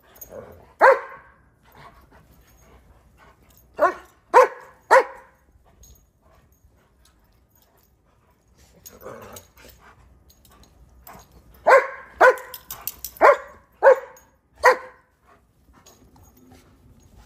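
Dogs barking in short sharp barks during rough play: one bark, then a quick run of three, then a longer run of about six.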